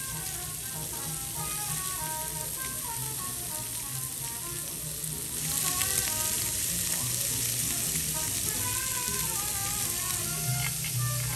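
Slices of pork belly sizzling on a grill pan, the sizzle growing louder about five seconds in, with light background music playing over it.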